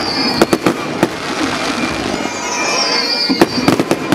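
Aerial fireworks shells bursting overhead: a cluster of sharp bangs about half a second in and another about three and a half seconds in, over steady crackling, with high whistles sliding down in pitch.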